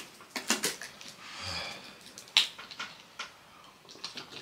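A man breathing hard from the burn of very spicy noodles, with one breathy exhale and a short grunt about a second and a half in. Around it come sharp clicks and crackles of a plastic water bottle being handled and drunk from, the loudest click a little past the middle.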